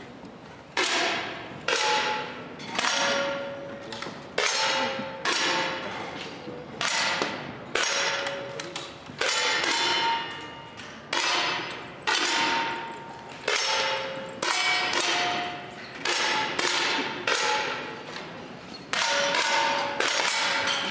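10 m air rifle shots from several lanes, about one a second, each a sharp report followed by a short ringing tone.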